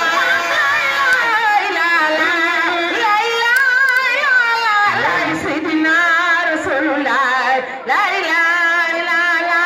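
A man singing into a microphone, long notes with wavering, ornamented turns of pitch and hardly a pause, amplified through the microphone.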